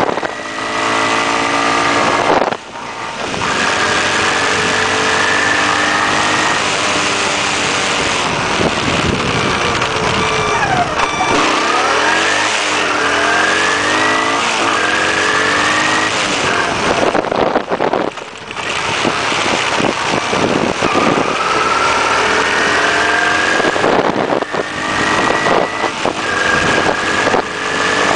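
Honda CT110 postie bike's small single-cylinder four-stroke engine running under way, the revs climbing and falling. There is a short break in the engine note early on and a longer one past the middle, each followed by the pitch climbing again, and the revs fall off for a while around ten seconds in.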